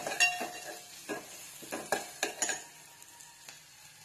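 Slotted steel spoon scraping and clinking against an aluminium pot, stirring ginger-garlic paste and chopped green chillies frying in a little oil, with a faint sizzle underneath. The stirring stops about two and a half seconds in, leaving only the sizzle.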